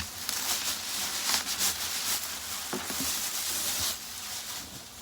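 Rustling and crackling of packaging being handled, for about four seconds, then quieter.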